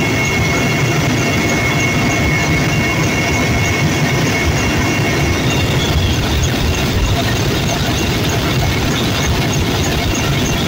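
Helicopter in flight, heard from inside the cabin: a loud, steady rumble of engines and rotor with a thin, steady high whine over it.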